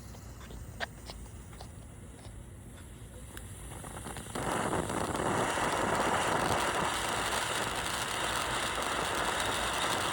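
Kaboom Fireworks Rainbow Cone ground fountain: after a few faint clicks and a slowly building fizz, the fountain catches about four seconds in with a sudden loud, steady hissing spray that keeps going.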